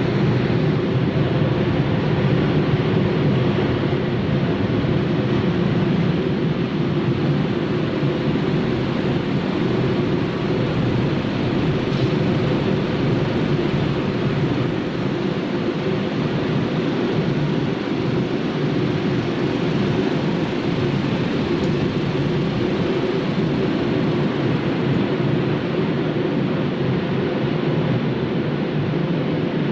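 Machinery of a breakfast cereal extrusion line running: a steady, unbroken mechanical noise, strongest in the low range.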